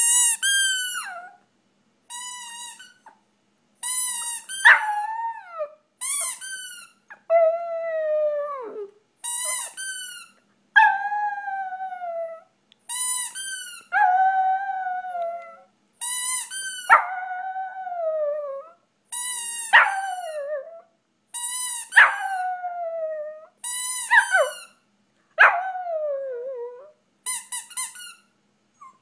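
Shih Tzu puppy howling over and over: more than a dozen high, drawn-out howls, each sliding down in pitch and lasting a second or two, with short pauses between them.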